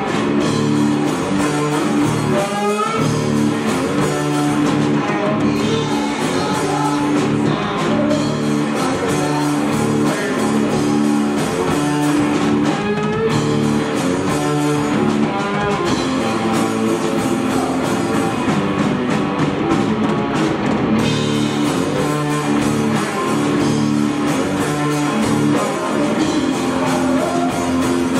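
Live rock band playing loud and without a break: guitar over a drum kit, with singing.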